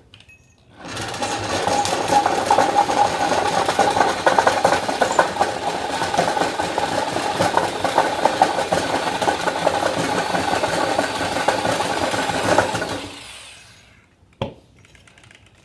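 Corded electric drill spinning a log tenon cutter into the end of a peeled log, shaving the wood into a round tenon. The drill starts about a second in, runs at an even level under cutting load, and winds down near the end, followed by a single click.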